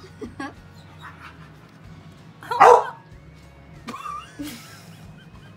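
A dog barks once, loudly, about two and a half seconds in, with a shorter, higher sound about a second later. Faint background music plays underneath.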